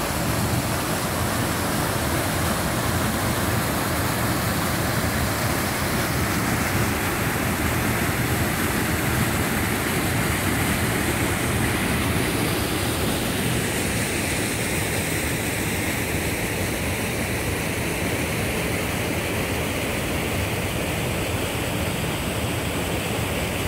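A mountain stream cascading over rocks and down a small waterfall: a steady rush of falling water.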